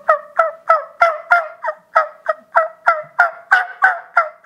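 Turkey diaphragm mouth call with a stretched latex reed, played as a long, even run of hen turkey yelps, about three a second. Each yelp breaks from a higher note down to a lower one.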